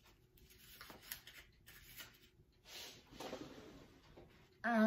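Faint handling sounds as a sticky rice-pudding ball is picked out of a plastic tray, then near the end a woman's loud, steady "mmm" hum on one held pitch.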